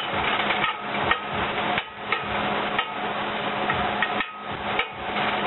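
Slotted metal spatula scraping and knocking against a cast-iron skillet, about two strikes a second, while cauliflower rice and onions are stir-fried, with a steady hiss of frying underneath.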